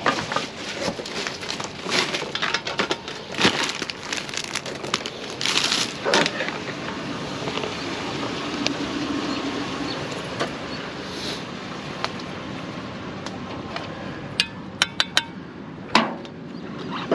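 Rummaging through discarded items in a dumpster: objects clinking and clattering against each other, with a quick run of sharp clicks near the end.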